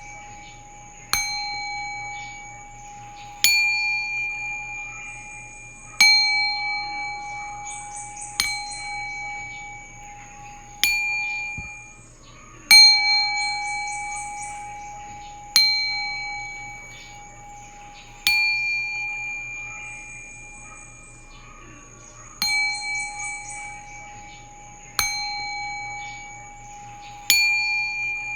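Singing bowl struck about every two and a half seconds, each strike ringing out in the same clear tone with shimmering higher overtones and a slow fade, overlapping the next.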